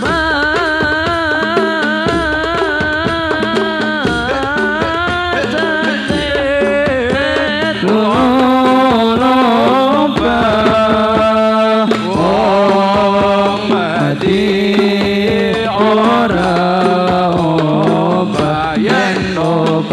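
Male voices singing Arabic sholawat devotional song with ornamented, wavering melodic lines, accompanied by hand-struck frame drums.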